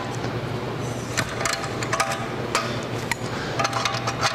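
Irregular metallic clicks and knocks of hand tools on steel as a homemade bolt-and-nut rivnut setting tool is worked loose from a freshly set rivnut in sheet metal held in a vise. A steady low hum runs underneath.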